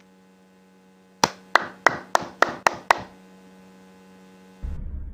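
A steady low hum with a quick run of seven sharp, ringing taps, evenly spaced about a third of a second apart, then a short low rumble near the end.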